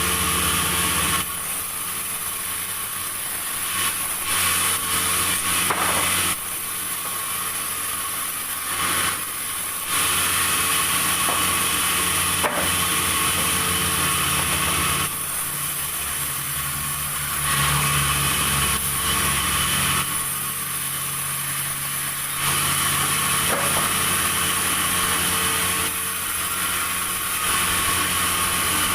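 Sawmill saw cutting timber, its engine running steadily underneath. The cutting noise swells for stretches of a few seconds and eases back between them, as the saw goes into and out of the wood.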